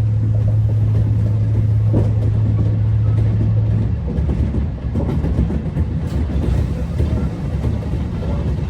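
Kintetsu electric train running through the station. A steady low hum cuts off about four seconds in, giving way to the rumble and rattle of wheels over the rails.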